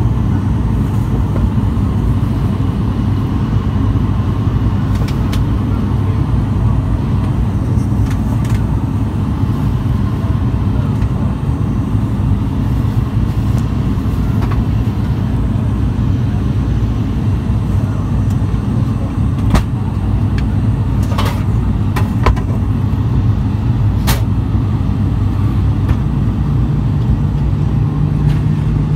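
Cabin drone of an ATR 42-600's twin turboprop engines and propellers in flight: a loud, steady low hum. A few sharp clicks come in the second half, and a low tone in the hum grows stronger near the end.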